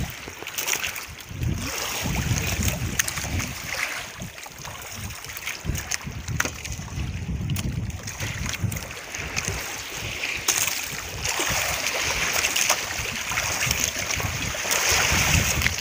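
Wind buffeting the microphone over the hiss of water lapping, with a few brief sharp knocks.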